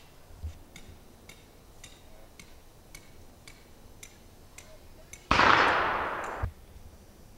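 Faint ticking about twice a second, then, about five seconds in, a sudden loud blast that dies away over about a second and cuts off with a low thump.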